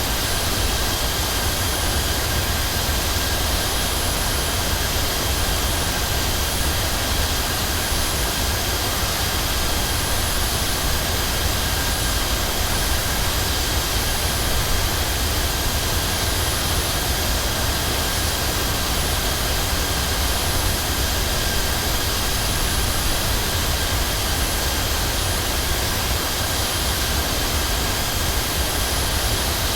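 Jet airliner heard from inside the passenger cabin: a steady engine and airflow noise with a deep rumble and a thin high whine, unchanging throughout.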